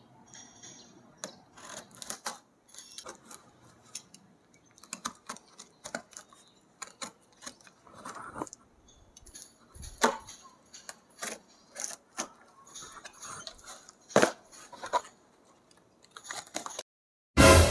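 A small hand-held cutter scraping and slicing the packing tape on a cardboard box, with the cardboard rustling and knocking in scattered short scrapes and clicks. A few sharper strokes stand out, and a sudden loud burst comes at the very end.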